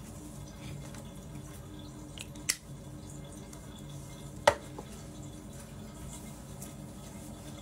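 Plastic cap pressed onto a bottle: two short sharp clicks, one about two and a half seconds in and a louder one about four and a half seconds in, over a faint steady hum.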